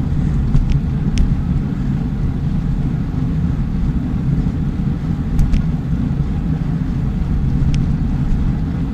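Steady low rumble of wind on the microphone and road noise from a moving bicycle, with a few faint clicks scattered through it.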